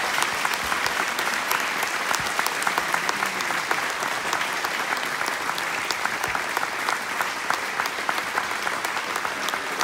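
Audience applause: many hands clapping steadily, easing off slightly toward the end.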